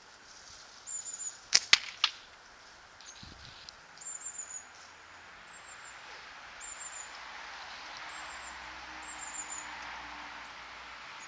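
A single catapult shot about a second and a half in: a sharp snap as the bands are released, followed a split second later by the ammo striking the target. A small bird chirps repeatedly in short high calls throughout.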